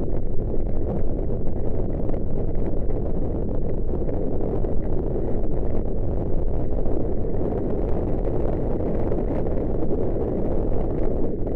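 Wind buffeting a helmet camera's microphone on a galloping racehorse's rider: a loud, steady rumble with no clear rhythm.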